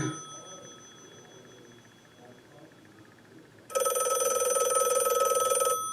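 Sound-effect recording of an old telephone's bell ringing with a fast trill. One ring dies away at the start, and after a pause of about three and a half seconds a second ring sounds for about two seconds.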